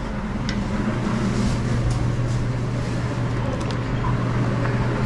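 Restaurant kitchen background during service: a steady low machine hum with a few light clicks and taps of utensils.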